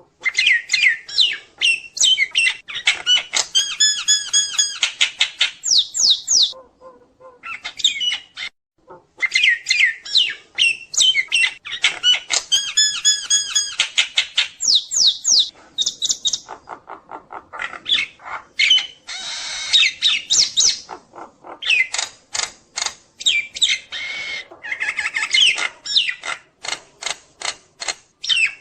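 Jalak nias myna singing vigorously in long, varied runs of sharp whistles, squawks and rapid clicking trills, broken by a few short pauses.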